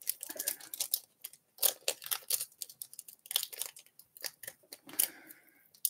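Foil wrapper of a Pokémon trading-card booster pack crinkling as it is torn open by hand: a quick, irregular run of sharp crackles with brief pauses.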